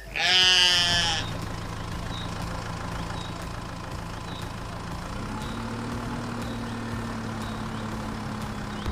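A sheep bleats once, a wavering call of about a second. Then a vehicle engine hums steadily and steps up in pitch about five seconds in.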